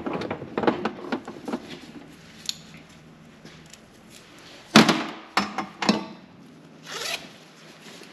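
Hand tools and metal parts clicking and clanking during work on a car's torque converter bolts: a quick run of clicks at first, then a sharp metallic clank about five seconds in, a few lighter knocks and a brief scrape.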